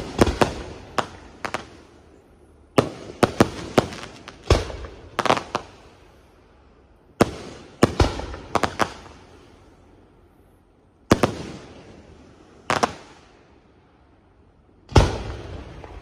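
Aerial firework shells bursting in volleys of sharp bangs, each trailing off in an echoing tail, with brief quieter gaps between volleys. A single loud boom comes near the end.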